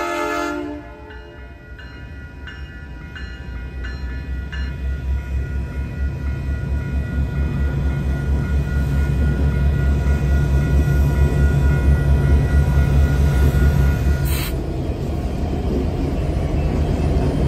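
A diesel freight locomotive's horn cuts off about half a second in, followed by a few dings of a level-crossing bell, about two a second. Then the locomotive's diesel engine rumble grows steadily louder as the train approaches and rolls past.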